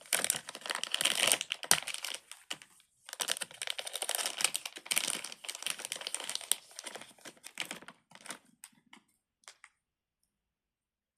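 Small plastic items being handled, crinkling and clicking densely in two long stretches with a short break between, then a few scattered clicks before it stops.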